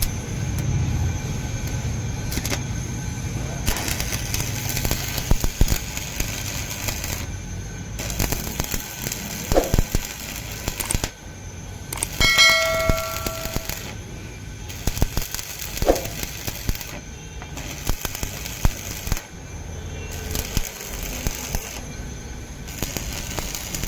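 Stick arc welding on a truck chassis crack: the arc crackles and sputters in stretches a few seconds long, breaking off and striking again several times. A brief pitched tone, like a horn, sounds about halfway through.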